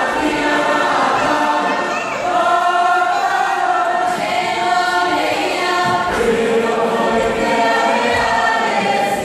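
Cook Islands performance group singing in chorus, unaccompanied, holding long notes that shift pitch every second or so.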